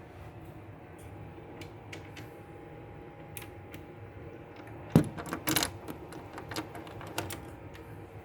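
Scattered clicks and knocks over a faint steady tone, with one sharp knock about five seconds in followed by a quick cluster of clicks.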